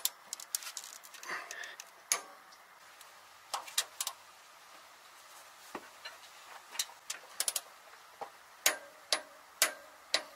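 Sharp metallic clicks of a ratchet wrench on the crankshaft pulley bolt, scattered singly and in short runs, as the 5.7 V8 is turned over by hand.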